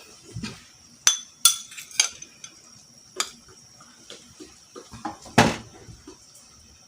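Kitchen utensils knocking and clinking against pots and dishes: a few sharp clinks with a short ring, the loudest about five and a half seconds in, with light clatter between.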